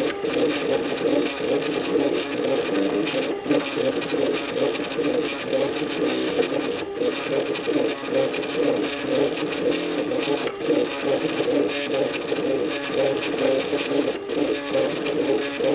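MakerBot Cupcake CNC 3D printer running as it extrudes ABS plastic, its stepper motors whirring in quickly shifting tones. The sound breaks off for a moment about every three and a half seconds.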